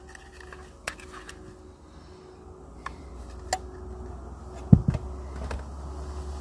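Small clicks and knocks of belongings being handled and put down inside a car, with a heavier thump about three-quarters of the way through, over a steady low rumble.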